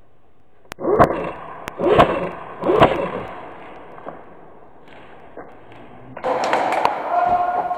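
Airsoft gunfire in a large hall: three sharp single shots about a second apart, each with a short ring, then a denser clatter of shots for the last second and a half.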